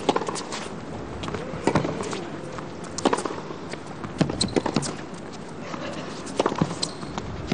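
Tennis rally on a hard court: sharp knocks of the ball struck by the rackets and bouncing, coming every second or so, with a steady crowd murmur underneath.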